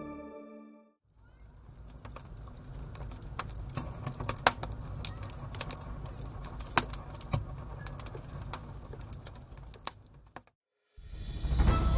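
Old-record crackle sound effect: irregular pops and clicks over a low hiss and rumble. It cuts off just before a rising swell that leads back into music. Ambient music fades out at the very start.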